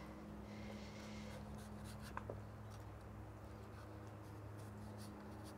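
Knife peeling a chayote by hand: faint scraping strokes of the blade along the skin, with two light ticks a little after two seconds in, over a low steady hum.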